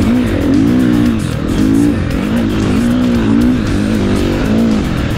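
2017 KTM 350 XC-F's single-cylinder four-stroke engine running hard, its pitch rising and falling about once a second as the throttle is worked.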